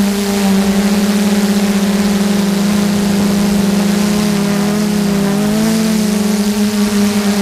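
Multirotor drone's electric motors and propellers heard from the onboard camera: a steady hum with overtones, its pitch shifting and wavering around five to six seconds in as the throttle changes.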